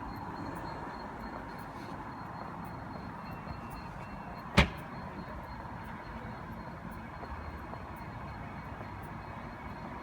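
Steady hum of a railway station with a faint steady tone in it, broken about halfway through by a single loud, sharp knock.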